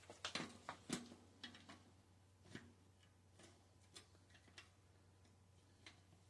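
Scattered light clicks and taps from handling a bicycle's rear wheel while fitting it to the frame: a quick cluster in the first second, then single ticks every second or so.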